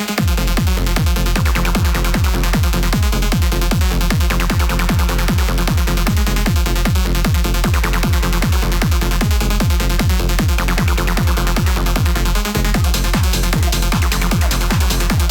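Techno-trance track from a DJ set playing loud. A steady four-on-the-floor kick drum and bassline drop in right at the start under bright synths, with a brief break in the bass near the end.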